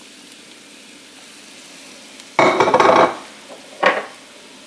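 Diced onions sizzling faintly in warm olive oil in a pan, broken by a loud scrape of a utensil stirring against the pan about two and a half seconds in and a shorter one near the end.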